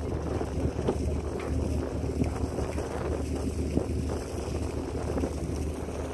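Ferry's engines humming steadily as the ship gets under way from the berth, with wind buffeting the microphone.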